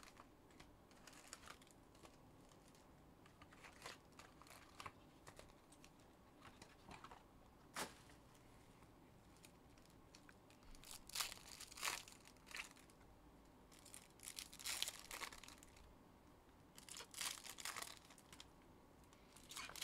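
Foil wrappers of 2021 Panini Donruss Optic football hobby packs being torn open and crinkled by hand: faint, scattered crackles and short tearing sounds, with a few sharp clicks, busiest in the second half.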